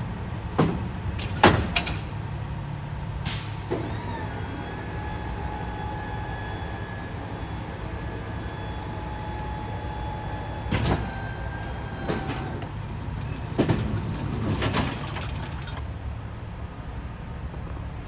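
A vehicle engine running steadily, with several clunks and knocks and a whine that comes in about four seconds in and holds for several seconds.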